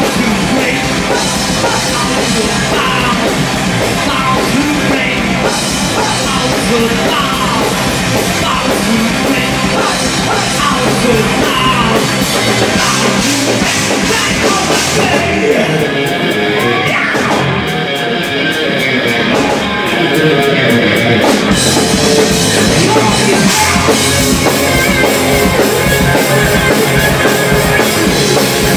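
A live heavy metal band playing: distorted electric guitars, bass and drum kit. The cymbals drop out for a few seconds past the middle, then the full band comes back in louder.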